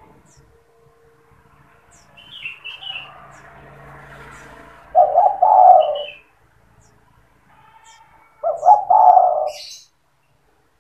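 Spotted dove (tekukur) cooing in the 'sandung kuk 2' lure-call style: two loud coo phrases, about five seconds in and again near the end, with a few faint high chirps from small birds between them.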